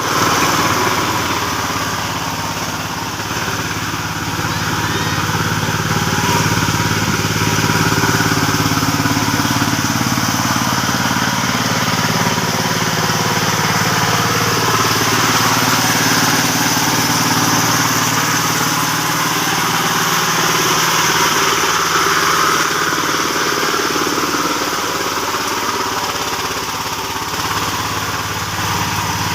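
Farm tractor engine running steadily while ploughing a paddy field, its pitch drifting a little up and down.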